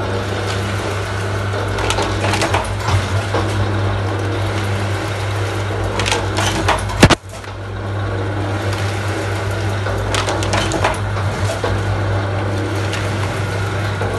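Two-die paper plate making machine running: a steady low hum with clusters of clattering knocks about every four seconds as the dies press. A single loud sharp crack about seven seconds in.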